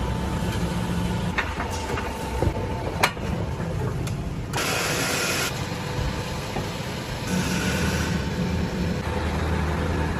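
A motor running steadily with a low drone, with a few sharp clicks between one and three seconds in, the loudest near three seconds.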